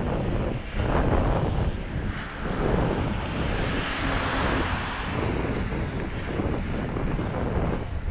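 Wind rushing over the microphone of a camera carried on a moving bicycle, a steady buffeting that swells into a brighter, louder rush about halfway through.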